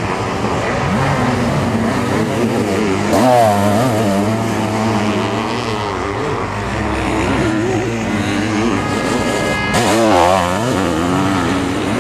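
Sidecar motocross outfits' engines revving hard as they race on the dirt track, the pitch rising and falling with throttle and gear changes. The loudest surges come about three seconds in and again about ten seconds in, as outfits pass close.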